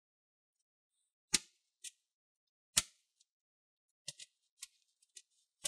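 A computer power supply's top cover being fitted onto its case: a few sharp clicks and taps, the two loudest about a second and a half and three seconds in, then several faint ticks.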